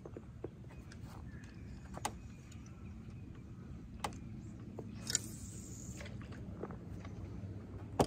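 Low, steady motor hum of a small fishing boat, with a few light clicks and knocks, a short hiss about five seconds in, and a sharper click near the end.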